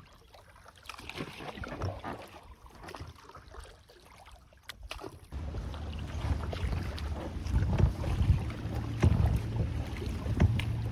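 Water moving and splashing around a raft on a river, with wind buffeting the microphone, which gets louder about halfway through.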